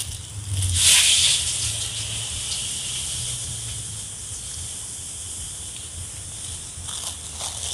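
Clear plastic bag crinkling as it is handled and shaken open, loudest about a second in and again faintly near the end, over a steady high hiss.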